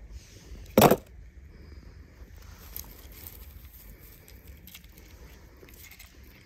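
Dry pine needles crackling and rustling as a hand rummages through them, with small scattered clicks. A short, loud noise about a second in stands out above it.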